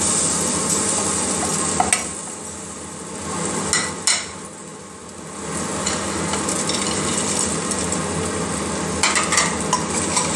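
Boiled potato pieces and fried urad dal badi going into hot masala in a pressure cooker, sizzling and frying, with a steel spoon clinking sharply against the plate and pot a few times. The stirring and clinks pick up near the end.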